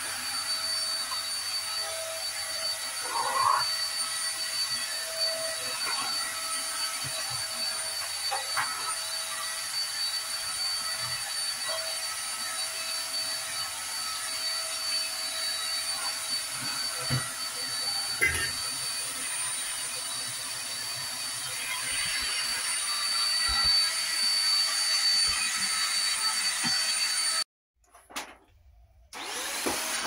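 Stick vacuum cleaner running with a steady motor whine and air hiss, with scattered knocks as it is moved about. The sound is louder in the later part and drops out briefly near the end.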